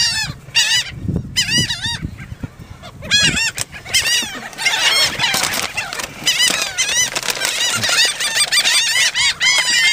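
A crowd of seagulls calling: many short, overlapping calls, each rising and falling in pitch. They come in ones and twos at first and thicken into a continuous din about three seconds in.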